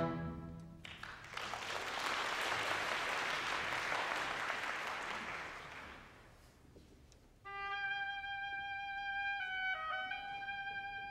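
The orchestra's chord cuts off, then audience applause rises and fades away over about five seconds. After a short hush, a solo woodwind begins a slow melody.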